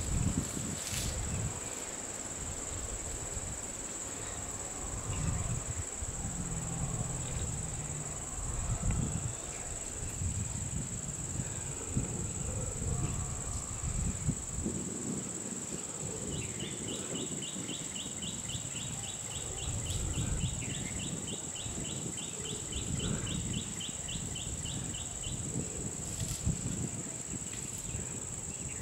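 Insects droning steadily on one high pitch. A fast repeating chirping trill joins a little past halfway and stops near the end, over irregular low rumbling noise.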